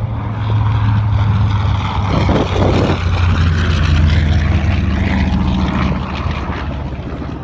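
Grumman TBM Avenger's Wright R-2600 twin-row radial engine droning in a low fly-by, the propeller plane loudest about four seconds in, its pitch dropping as it passes, then fading as it climbs away.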